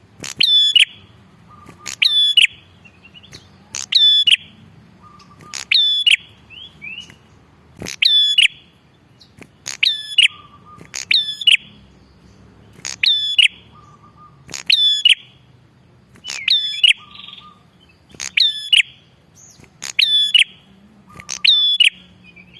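Prinia (prenjak) song: one loud, sharp, chattering phrase repeated about every two seconds.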